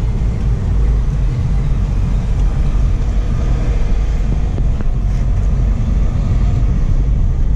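Steady low rumble of a car driving in city traffic: engine and road noise heard from inside the vehicle, with the surrounding traffic.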